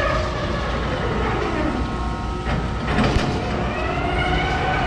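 Amusement-park ride machinery running with a rail-like rumbling clatter. Tones glide up and then back down in the second half.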